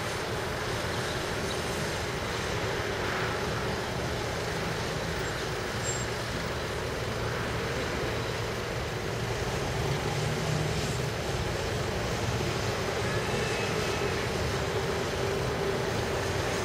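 A slow-moving ICE high-speed train rumbles steadily across the viaduct, mixed with city road traffic. Faint high squeals come in near the end.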